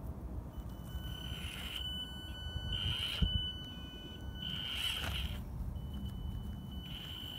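Axial SCX24 micro RC crawler's electric motor giving a steady high whine that switches on and off in stretches of a second or two as it crawls slowly over rocks. A low rumble runs underneath, with a single knock about three seconds in.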